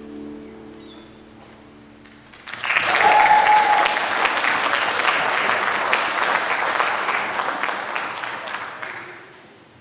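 The last held notes of the backing music fade out, then audience applause and cheering start suddenly about two and a half seconds in and die away near the end.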